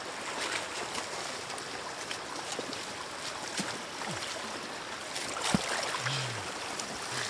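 Shallow floodwater splashing and sloshing as a hand gropes for catfish inside a bamboo plunge-basket fish trap, with a steady trickle of moving water and many small splashes. One sharp knock about five and a half seconds in.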